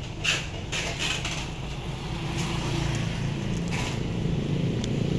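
Steady low hum of a motor vehicle's engine running, with a few short sharp knocks, growing slightly louder toward the end.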